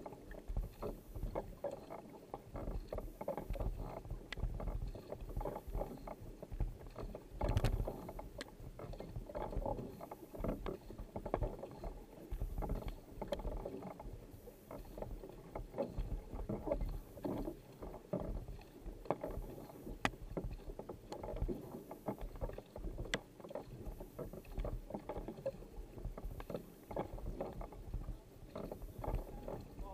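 Sprint kayak being paddled: the paddle blades dip and pull through the water in a steady, repeating stroke rhythm, with splashing, and a few sharp clicks or knocks.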